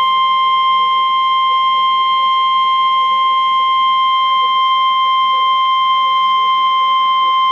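NOAA Weather Radio's 1050 Hz warning alarm tone: a single loud, steady, piercing tone held without a break. It is the attention signal sent ahead of a National Weather Service alert, here a severe thunderstorm watch.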